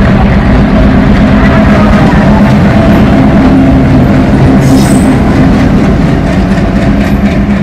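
An ALCo diesel locomotive running light past close by, its engine chugging loudly and steadily. There is a brief high hiss about five seconds in, and the sound eases a little near the end as it moves away.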